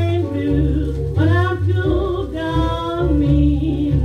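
1938 jazz-blues recording playing from a 78 rpm shellac record: a melody line with wide vibrato over a steady bass and rhythm section.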